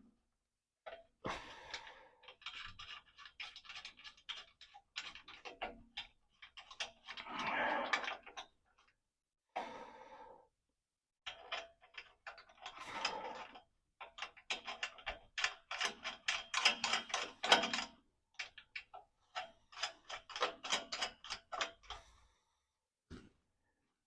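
Hand ratchet wrench clicking in quick runs as the nuts on the exhaust clamps are tightened, with short pauses between strokes.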